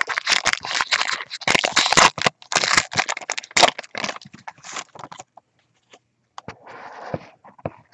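Crinkling of a trading-card pack wrapper and the cards inside being handled and shuffled. A dense run of sharp crackles lasts about five seconds, then stops, and a short rustle follows near the end.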